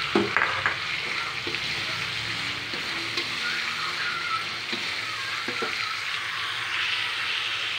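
Ground spice paste and fresh chillies sizzling steadily in oil in a metal wok, stirred with a metal slotted spatula that scrapes and clinks against the pan a few times.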